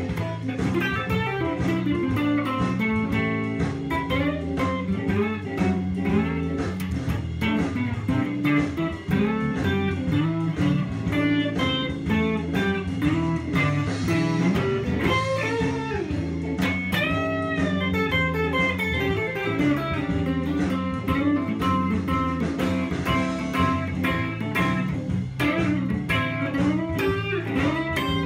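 Electric guitar, a Fender, playing a slow blues lead with bent notes that rise and fall in pitch, a clear run of them just past the middle, over low sustained notes.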